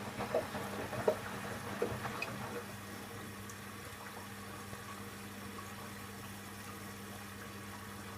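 Candy Aquamatic 1000T compact washing machine running an empty Cotton 60 descaling wash: water sloshing in the drum with a few light knocks for the first two or three seconds, then only a steady low hum.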